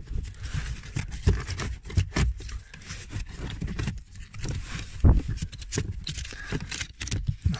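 A new pleated cabin air filter being pushed into the plastic filter housing of a VW Touran MK1: irregular scraping and clicking of the filter frame against the plastic, with dull knocks as it is worked into place.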